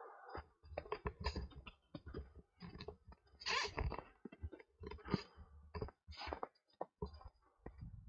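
Footsteps crunching on old, granular snow: irregular crunches about every one to one and a half seconds, with smaller clicks between, the loudest a little past halfway. A low rumble comes and goes underneath.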